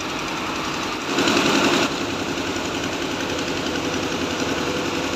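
Heavy diesel engine running steadily with a rapid knocking beat. A brief louder rush of noise lasts under a second, starting about a second in.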